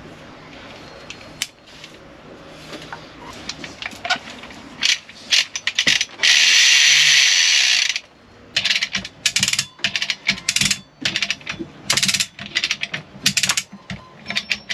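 Chain hoist ratcheting as it lifts a marine inboard engine: runs of rapid metallic clicks, with a loud rasp lasting about two seconds about six seconds in.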